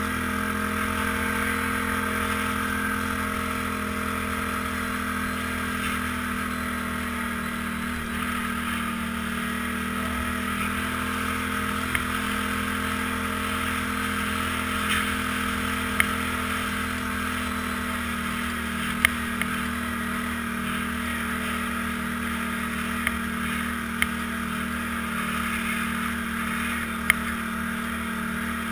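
Trail vehicle's engine running at a steady cruising speed, heard from a camera mounted on the machine, with a few sharp clicks partway through.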